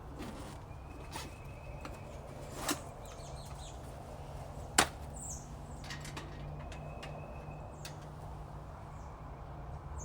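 Two sharp knocks about two seconds apart, the second louder, with a few fainter clicks and brief high bird chirps over a steady outdoor background.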